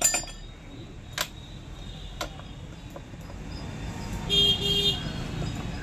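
A sharp knock at the start and two lighter taps, then a vehicle horn honks twice in quick short blasts over a low rumble of traffic.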